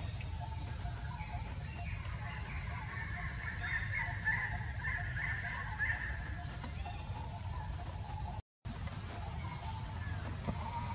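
Outdoor forest background: a steady high-pitched insect drone with repeated short calls from birds, busiest around the middle, over a low rumble. The sound drops out for a moment about two-thirds through.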